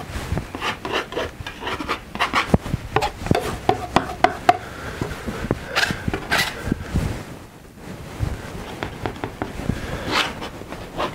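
Large palette knife scraping and spreading thick oil paint, in a run of short, irregular scrapes and taps, with a brief lull about seven seconds in.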